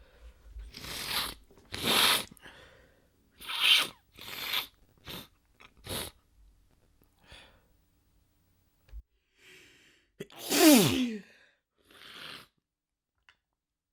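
A person's sneeze fit: a quick string of short, sharp, breathy sneezes and catches of breath over the first six seconds, then a lull. About ten and a half seconds in comes one big, loud sneeze with a voiced cry that falls in pitch, then a smaller burst.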